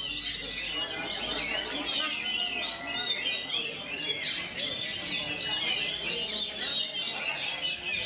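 Oriental magpie-robin (kacer) singing a long, continuous rolling song of rapid chirps and whistles with only short pauses, the fast delivery known among kacer keepers as ngerol.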